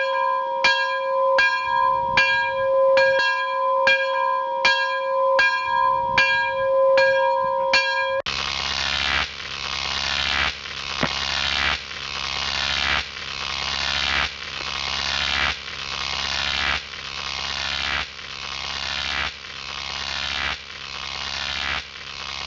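Electronic warning sound effect: a steady two-note tone with a ringing beep about every two-thirds of a second, which changes about eight seconds in to a swelling sound that rises and cuts off sharply about every one and a quarter seconds.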